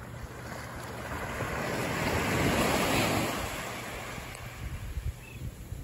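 Small surf waves breaking and washing up the sand: a rush that swells to its loudest about halfway through, then draws back. Wind buffets the microphone with low rumbles and a few thumps near the end.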